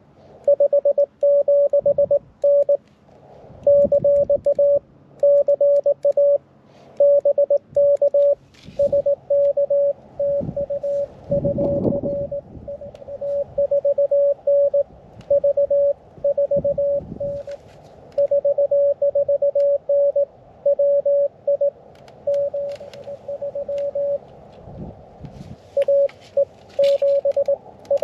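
Morse code (CW) from a portable QRP ham transceiver: a single steady beep keyed on and off in dots and dashes over a band of receiver hiss, with a few low thumps.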